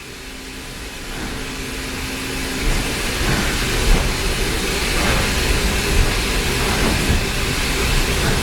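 Cab noise of Canadian Pacific 2816, a 4-6-4 Hudson steam locomotive, under way: a steady rumble and hiss that grows louder over the first three seconds and then holds.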